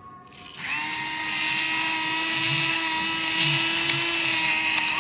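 Small electric motor of a battery-powered salt and pepper grinder running with a steady high whine. It starts about half a second in and spins up briefly before holding its pitch.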